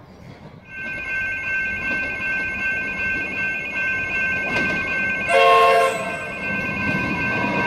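Level crossing warning bells ringing in a rapid, steady pulse, joined about five seconds in by a Comeng electric train's horn, a short chord of several tones that is the loudest sound. The approaching train's rumble builds near the end.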